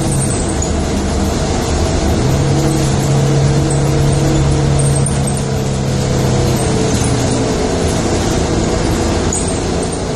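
Engine hum and road noise heard from inside a moving road vehicle: a steady rumble with a low engine drone that grows stronger a couple of seconds in and fades again around seven seconds.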